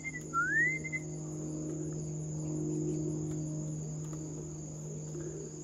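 Steady high-pitched trilling of crickets, over a low steady hum. A short whistle rises and levels off in the first second.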